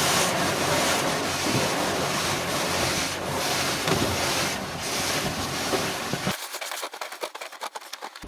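Automatic car wash spraying water over a car, a steady heavy rushing. About six seconds in the deep part of the sound drops away and it breaks up into a scattered patter of sharp ticks.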